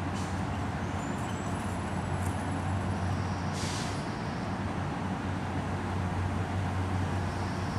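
Steady low hum and rumble of outdoor background noise, with a short hiss about three and a half seconds in.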